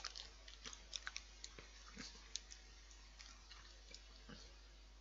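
Faint chewing of a milk-chocolate-covered biscuit bar: small crunchy clicks, busiest in the first couple of seconds and then thinning out.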